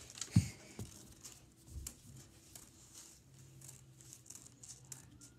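A single thump about half a second in, then faint paper rustling and small clicks from paper being cut out with scissors.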